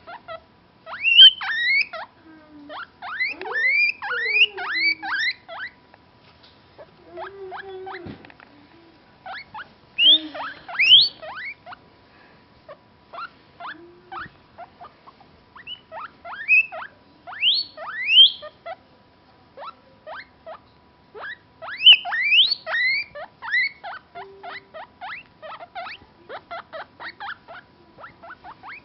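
Skinny pig (hairless guinea pig) squeaking: repeated bouts of quick, short rising squeaks, several a second, with brief pauses between the bouts.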